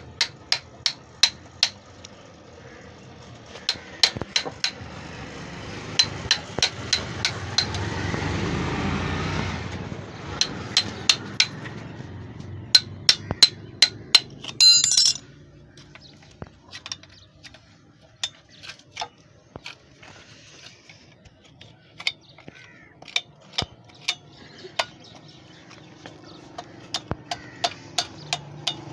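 Metal hand tools tapping and clinking against the fittings of a small diesel engine, in quick runs of several sharp taps a second. A rushing noise swells and fades about a quarter of the way in, and a brighter scraping clink comes about halfway through.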